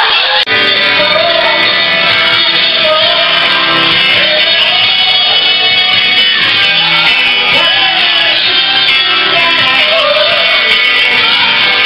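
Live band playing loud rock music: guitar with a singer.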